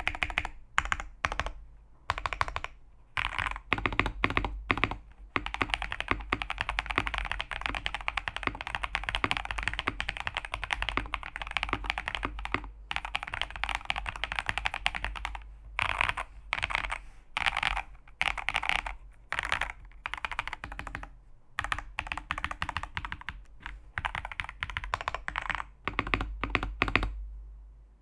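Typing on a custom mechanical keyboard with KTT Wine Red V2 linear switches mounted on a POM plate: fast runs of keystrokes in bursts with short pauses, one long unbroken run in the first half. The typing stops about a second before the end.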